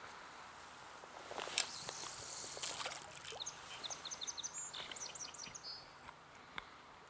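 A small bird chirping a quick series of short high notes. Before it come a couple of seconds of rustling and scuffing close to the microphone.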